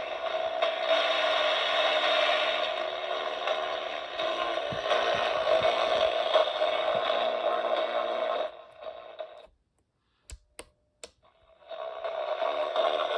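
Craig CR41803 clock radio's small built-in speaker playing the radio, a noisy, static-like sound rather than clear speech or music. About eight and a half seconds in it fades out, three sharp clicks follow, and the radio sound comes back near the end.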